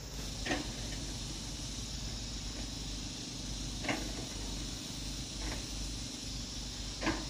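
Four sharp knocks at uneven intervals, each with a short ring, over a steady high hiss.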